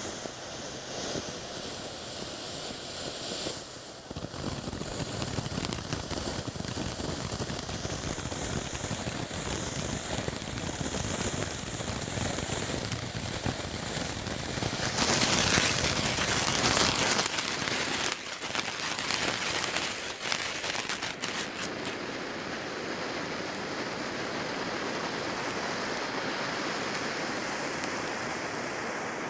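Consumer firework fountain spewing sparks: a continuous hissing rush that swells louder for about two seconds halfway through, followed by a run of sharp crackles.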